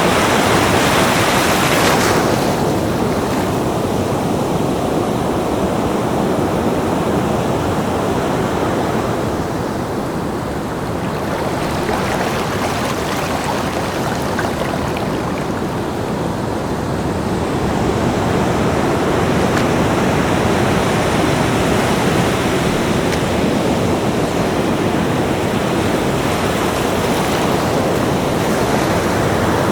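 Ocean surf breaking and washing on a beach: a continuous rush of water noise that swells and ebbs slowly. The loudest wash fades about 2 seconds in, and the sound builds again in the second half.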